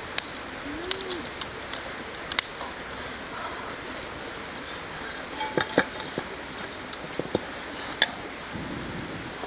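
Dry twigs and grass snapping and crackling in a small wood fire, a scatter of sharp cracks over a steady rush of flowing stream water; near the end a breath blown onto the fire.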